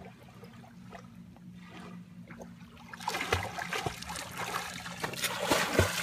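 Shallow lake water splashing and sloshing, quiet at first and then growing louder about three seconds in, with several low thumps.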